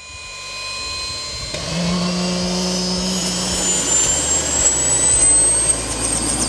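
Bell 206 JetRanger helicopter's turboshaft engine starting up: a turbine whine climbing steadily in pitch as it spools up. A fast rhythmic pulsing comes in near the end as the rotor gathers speed.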